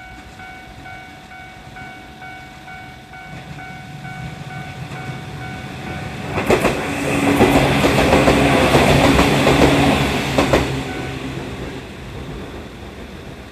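Japanese level-crossing alarm ringing at about two beats a second while a Ryutetsu Nagareyama Line train passes over the crossing, loudest for about four seconds in the middle, its wheels clacking over rail joints as it comes and goes. The alarm stops shortly after the train has passed.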